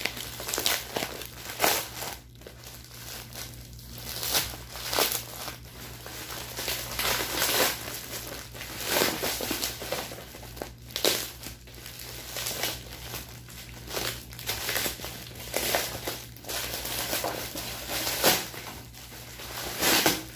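Plastic packaging crinkling and tearing in irregular bursts as a parcel's brown tape wrapping is pulled off and its green plastic bag is handled.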